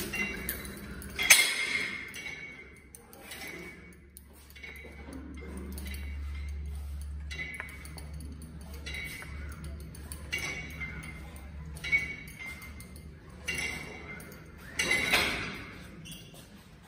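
Weight-stack plates of a Xebex cable machine clinking as they lift and settle with each triceps-pushdown rep. The clinks come about every second or so, with the loudest about a second in and near the end.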